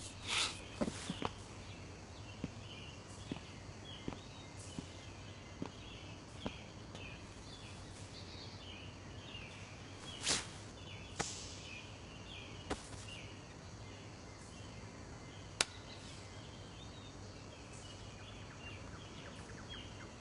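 Faint background ambience of continuous small chirps over a low steady hum, broken by a few soft swishes, one near the start and one about halfway, and some light clicks.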